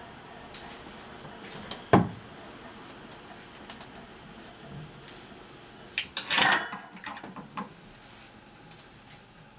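Kitchen clatter of utensils and cookware being handled: a single sharp knock about two seconds in, then a quick run of clattering knocks and clinks about six seconds in.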